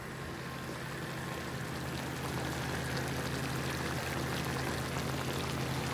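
Brown gravy simmering and bubbling around deer-meat burger patties, onions and mushrooms in a cast-iron skillet: a steady bubbling hiss, with a low steady hum beneath it.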